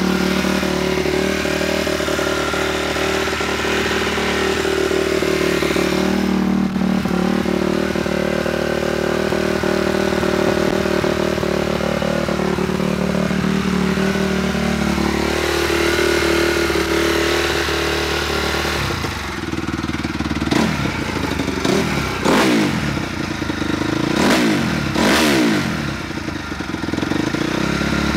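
2007 Honda CRF250R's four-stroke single-cylinder engine, fitted with a Pro Circuit T-4 dual exhaust, idling steadily, then revved in several quick throttle blips over the last third.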